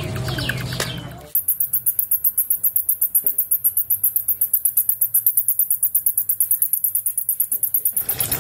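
A small bat held in the hand squeaking rapidly, a fast even series of sharp, high-pitched squeaks at about eight a second, starting about a second in.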